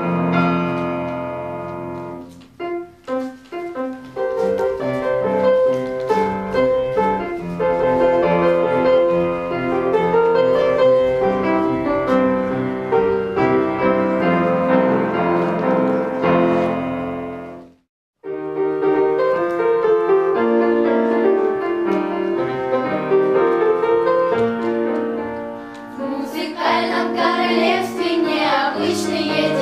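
Piano music in a classical style. It cuts off abruptly for a moment past the middle, then starts again, and singing voices come in near the end.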